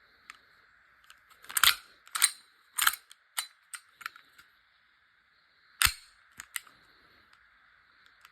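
Sharp clacks and clicks from a VFC Glock 17 Gen5 gas blowback airsoft pistol. Three loud clacks come about half a second apart a couple of seconds in, then several lighter clicks, then one more loud clack about six seconds in.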